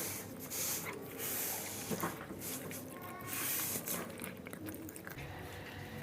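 Cats eating from their food bowls, chewing in irregular bursts.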